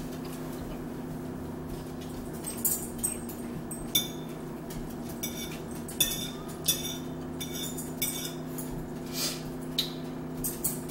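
Forks clinking and scraping against plates at the meal table, several sharp clinks spread through, over a steady low hum.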